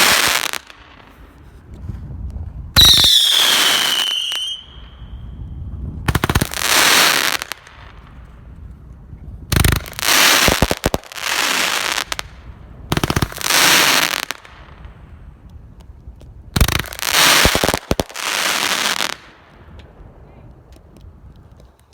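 Daytime firework cake firing, the 120-shot Daytime Celebration: loud volleys of bangs and crackling about every three seconds. Short whistling tails fall in pitch on the volley about three seconds in.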